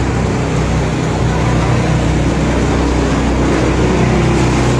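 An engine running steadily with a low, even hum, loud and continuous.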